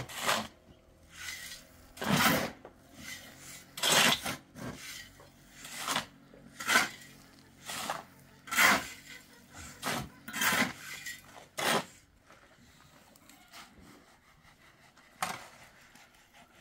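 Rhythmic rasping scrape strokes, roughly one a second with every other stroke louder. They stop about twelve seconds in, and one more stroke comes near the end.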